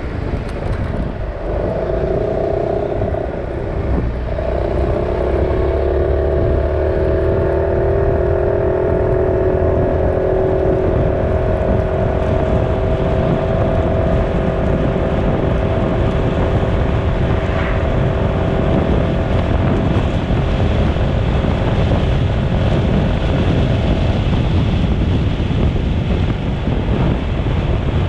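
Motorcycle engine accelerating along the road, with wind noise on the microphone. Its note drops at a gear change about four seconds in, then climbs slowly and sinks into the wind rush near the end.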